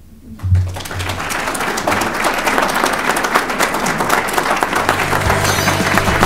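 Audience applauding, building up about half a second in and holding steady. Background music with a low bass comes in under the applause near the end.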